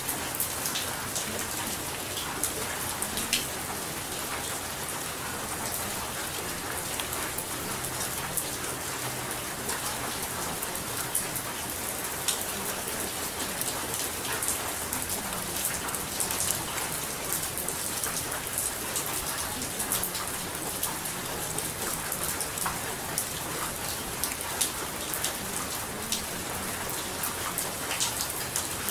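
Steady rain: an even hiss with many small, sharp drop ticks scattered through it.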